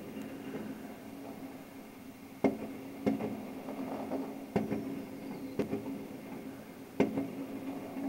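Fireworks exploding one at a time: five sharp bangs at uneven intervals over a steady low hum. A faint falling whistle leads into one of the bangs.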